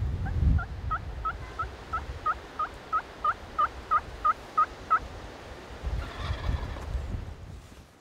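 A turkey yelping: a run of about fifteen short yelps, about three a second, growing louder and stopping about five seconds in. Wind rumbles on the microphone at the start and again near the end.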